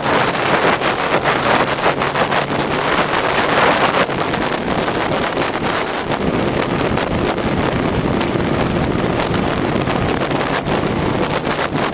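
1975 Mercury 1500 outboard, a 150 hp inline-six two-stroke, running steadily at high speed, heard from aboard the boat with heavy wind noise on the microphone. The high hiss eases about four seconds in.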